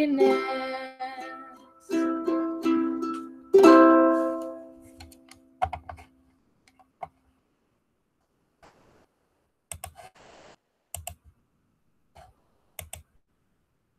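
Ukulele strummed: three closing chords, the last one ringing out and fading away. After that come scattered soft clicks and knocks.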